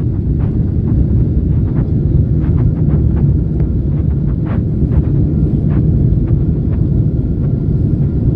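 Loud steady low rumble inside the cabin of a Boeing 747-8 during landing, with frequent small clicks and knocks throughout.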